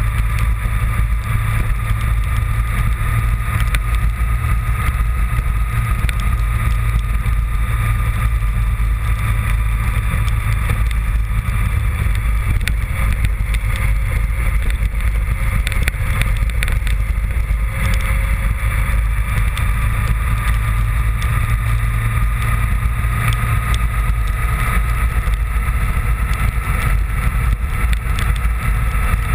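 Honda VFR750 motorcycle's V4 engine running steadily under way, with a heavy low rumble and a steady whine that climbs slightly near the end.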